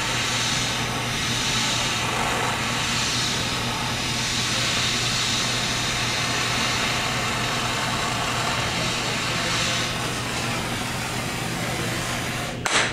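Gas soldering torch burning with a steady hiss while heating a copper pipe joint for sweat-soldering. Near the end there is a brief louder burst, and the hiss cuts off suddenly.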